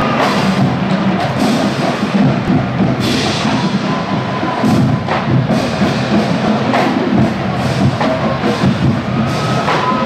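Marching band playing on the field, with drums and percussion prominent.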